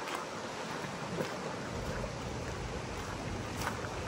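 Steady summer rain falling, with a few sharp taps scattered through it; a low rumble strengthens underneath about two seconds in.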